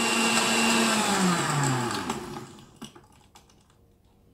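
Countertop blender running on a pisco sour mix, then switched off about a second in: its motor hum falls in pitch and fades as the blades spin down, leaving a few light clicks.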